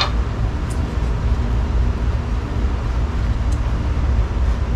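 A knife blade shaving curls off a stick of wood to make a feather stick, heard as a few faint short scrapes, over a steady low rumble.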